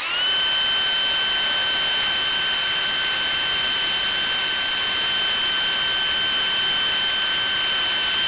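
DeWalt DCD999 brushless cordless hammer drill/driver drilling through quarter-inch steel angle iron on high speed. The motor whine spins up at the start, holds one steady pitch and runs smoothly, then stops at the end.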